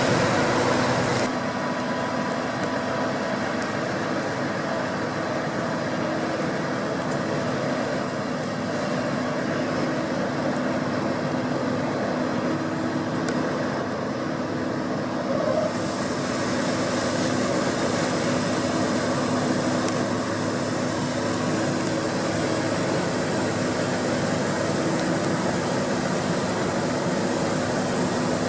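A Deutz-Fahr 6060 combine harvester running steadily under load while harvesting wheat: a continuous engine drone with the rush of its machinery. The sound changes abruptly about a second in, and a higher hiss comes in about halfway through.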